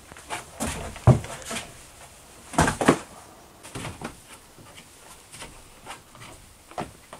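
Knocks and thuds of hands striking and gripping the narrow wooden ledges of a homemade cliffhanger obstacle, with the board frame knocking as a climber hangs and moves along it. The loudest knocks come about a second in and just before three seconds in.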